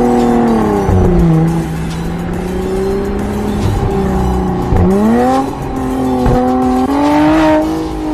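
Mercedes-Benz C43 AMG engine through an aftermarket exhaust, being revved while the car stands. The revs drop back about a second in and settle low, then climb sharply about five seconds in and are held with small rises and dips before falling away near the end.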